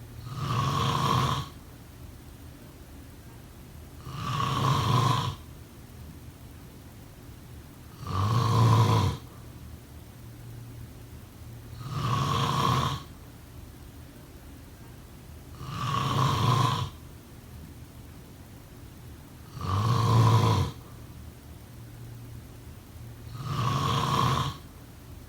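A person snoring in a slow, regular rhythm: seven snores about four seconds apart, each lasting a little over a second.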